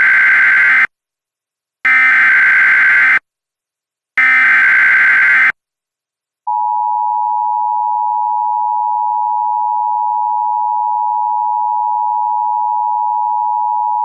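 Emergency Alert System SAME header: three short bursts of harsh digital data about a second apart, followed about halfway in by the EAS two-tone attention signal, a steady dual tone held for about eight seconds, announcing a severe thunderstorm warning.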